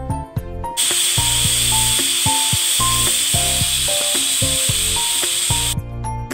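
Aluminium pressure cooker letting off steam as its weight valve is lifted with a spatula, releasing the pressure once the cooking is done. It is a loud steady hiss that starts about a second in and cuts off suddenly near the end, over background music.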